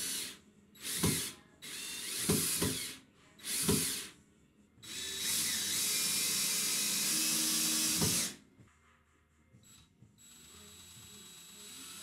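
Cordless drill driving wood screws through a steel door hinge into the door frame. There are four short bursts of the motor in the first four seconds, then a longer run of about three seconds, with the drill's clutch, set to low torque, ratcheting as the screws seat.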